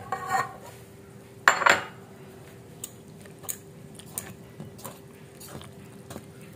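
Small wire hand whisk working milk into flour in a stainless steel mixing bowl. There is one loud metal clank about a second and a half in, then light clinks of the whisk against the bowl about every two-thirds of a second.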